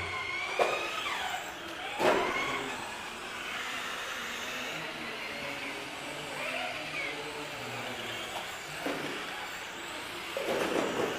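RC touring car driving, its motor whining and gliding up and down in pitch as it speeds up and slows, with a couple of sharp knocks in the first two seconds.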